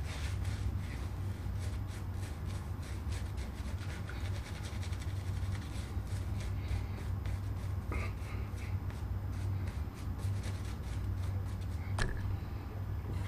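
Kent BLK2 badger shaving brush scrubbing lather into the beard in rapid scratchy strokes, over a steady low hum. A single sharp click near the end.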